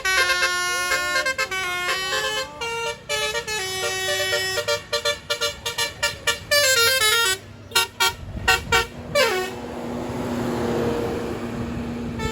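A bus's Basuri 'telolet' multi-note air horn playing a melody, the notes changing in steps, with a run of quick short notes in the middle and a falling glide about nine seconds in. The horn then stops, leaving a steady hiss with a low hum.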